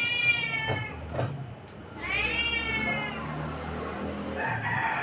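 A cat meowing: three long meows, each rising then falling in pitch, about two seconds apart.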